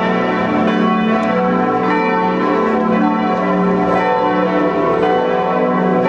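Several large church bells of Luxembourg Cathedral pealing together, their strikes overlapping so the ringing tones never die away.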